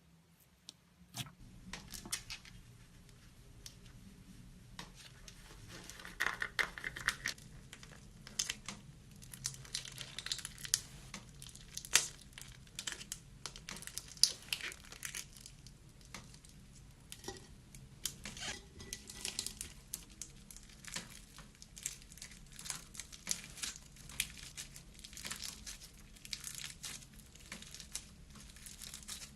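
Slime being squeezed, stretched and pressed by hand, giving dense crackling and clicking with occasional louder pops.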